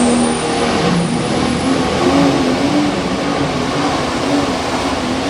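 Turbocharged diesel engine of a Light Pro Stock pulling tractor running hard under load, with a high turbo whine that climbs in pitch over the first two seconds.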